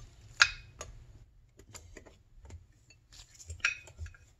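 Sharp metal clinks of a steel wrench against the bolts and plate of a bolt-type puller being set up. One loud clink about half a second in, then scattered lighter ticks and a short cluster of clinks near the end.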